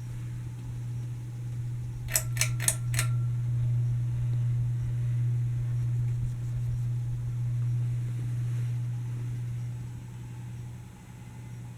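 Hampton Bay Landmark Plus ceiling fan motor running with a steady electrical humming and buzzing. About two seconds in come four quick, sharp clicks, and the hum grows a little louder after them.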